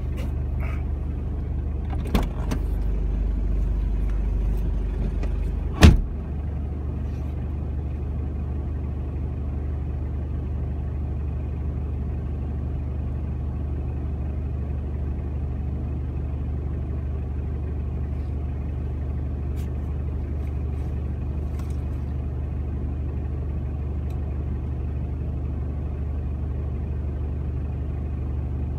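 Car engine idling while the car stands still, heard from inside: a steady low hum. A sharp knock comes about two seconds in, and a louder one just before six seconds.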